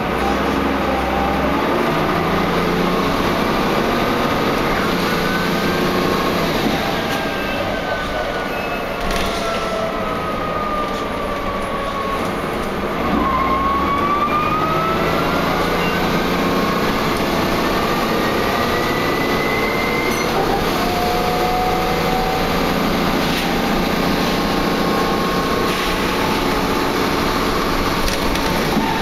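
Wright Cadet single-deck bus heard from onboard while driving, a steady running drone with a whine that falls in pitch for several seconds, then climbs again as the bus picks up speed. The uploader calls the bus's noises funny and weird and takes them as a sign the bus is sounding poorly.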